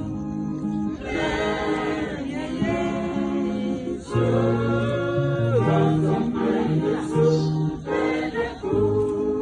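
A choir singing, several voices holding long notes together and changing chord every second or so.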